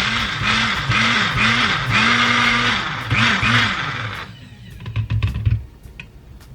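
Personal blender running on a cup of crushed ice, frozen berries, spinach and banana, the motor's pitch dipping and recovering about twice a second as the blades catch on the thick, low-liquid mix, then cutting off suddenly about four seconds in. A few low knocks follow.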